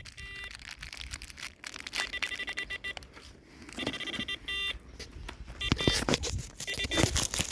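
Electronic carp bite alarm sounding in short runs of rapid beeps, six or so bursts, the signal of line being pulled through the alarm by a taking fish. Sharp clicks and knocks, loudest near the end, come in among the beeps over a low wind rumble.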